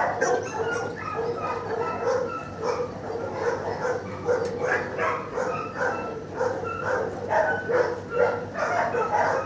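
Many dogs in shelter kennels barking continuously, short barks and yips overlapping with no break.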